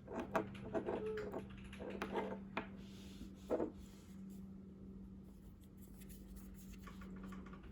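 Soft clicks and rustles of small objects being handled over a steady low hum; the handling stops about three and a half seconds in, leaving only the hum.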